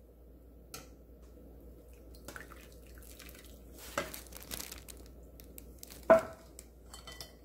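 Boiling water poured in a stream over fish cakes in a stainless mesh strainer, splashing and draining through into a glass bowl beneath. A few light knocks come through it, the loudest about six seconds in, around when the pour stops.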